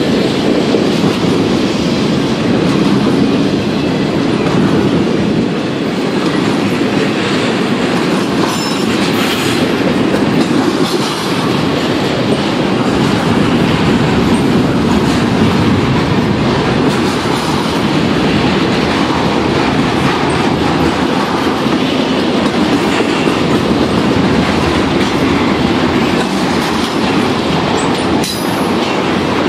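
Intermodal freight train's well cars, loaded with double-stacked containers and trailers, rolling past: a loud, steady rumble of steel wheels on the rails.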